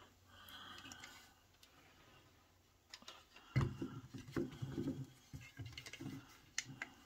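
Hands taking hold of and moving two plastic LED light bars on a wooden table. About halfway through there is a cluster of soft knocks and rubbing, with a few sharp clicks.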